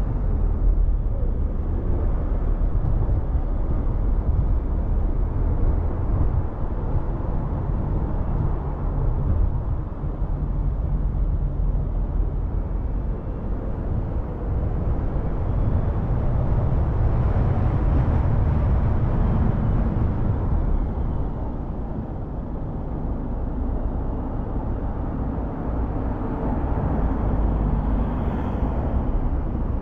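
Car driving along a town street: a steady low rumble of engine and tyre noise, swelling briefly about halfway through.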